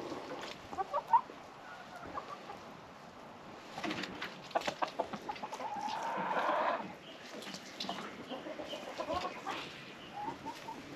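Backyard chickens clucking, with a longer, louder call about six seconds in.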